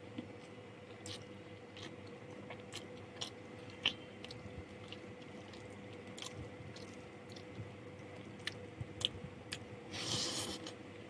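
Close-miked chewing and mouth sounds of someone eating a meal of rice, chicken curry and fried potatoes, with scattered sharp smacks and clicks. A brief louder rustle comes about ten seconds in, over a faint steady hum.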